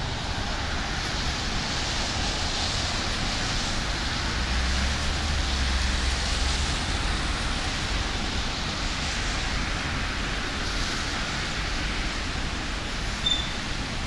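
Steady hiss of rain and wet city traffic, with car tyres swishing past on the wet road; the loudest pass comes about five seconds in with a low rumble. A short high blip sounds near the end.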